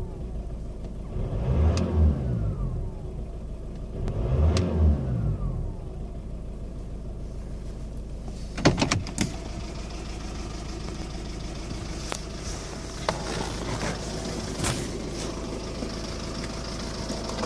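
Skoda Octavia vRS 2.0 PD TDI four-cylinder diesel revved briefly twice, then settling to a rough, misfiring idle, with a few sharp clicks over it. The owner suspects an injector problem.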